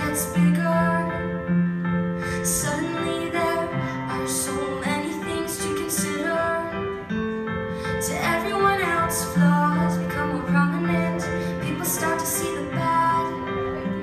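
Female vocalist singing a slow song into a microphone through a PA system, with sustained sung notes over an instrumental accompaniment.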